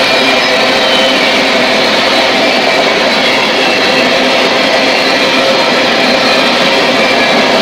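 Freight train of Herzog gravel hopper cars rolling past: steel wheels on rail making a loud, steady roar, with faint high ringing tones over it.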